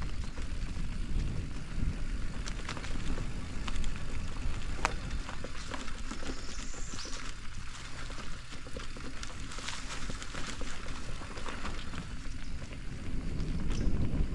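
Bicycle rolling along a trail: low rumble of tyres and wind on the microphone, with scattered clicks and rattles.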